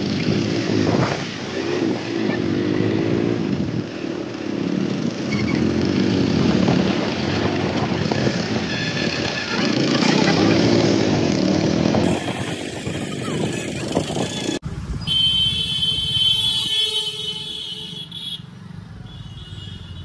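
Motorcycle engine running at low speed, its pitch rising and falling with the throttle. About fifteen seconds in the sound changes abruptly and then fades.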